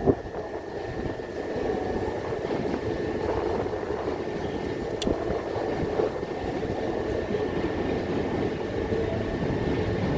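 Class 375 Electrostar electric trains running through the station: a steady rumble of wheels and traction that grows about two seconds in and holds, over a thin steady high whine. A short knock sounds right at the start.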